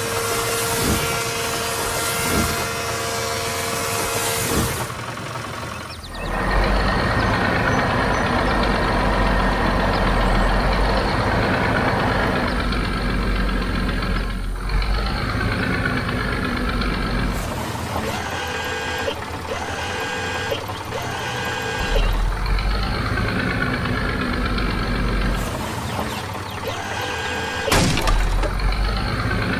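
Cartoon heavy-vehicle sound effects: a truck engine runs with a low rumble, and a run of short repeated beeps comes around the middle, like a reversing alarm.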